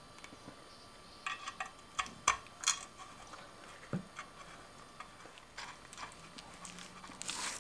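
Small steel bolts clicking and tapping against a two-piece brake rotor's hat as they are set into their holes and started by hand: a scatter of light, sharp clicks, with a short rustling scrape near the end.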